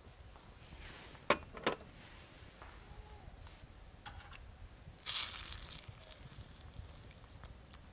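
Metal tongs clicking twice against a pot of stew, then a short scraping, swishing stir in the broth about five seconds in.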